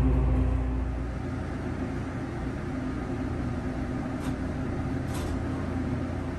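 Low rumble of another train passing close outside the carriage window, dying away about a second in. It leaves a steady low hum inside the stopped train car, with two faint clicks near the end.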